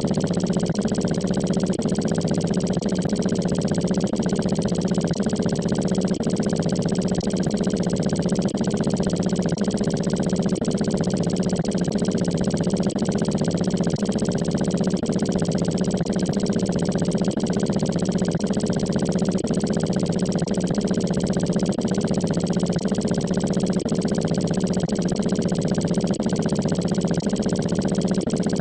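Synthetic text-to-speech voice saying "autistic moment" sped up sixteen times, so the words blur into one continuous, steady buzz with no audible pauses.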